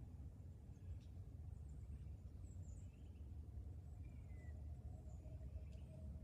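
Quiet woodland ambience: faint, scattered short bird chirps and a brief falling whistle about four seconds in, over a steady low rumble. A faint steady hum comes in about halfway.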